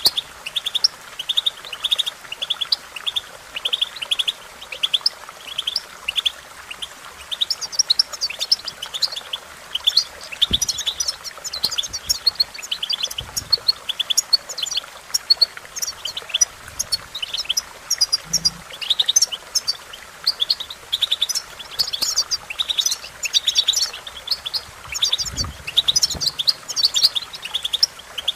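European goldfinch singing: a long, rapid twittering song of short high chirps and trills that keeps going with only brief breaks.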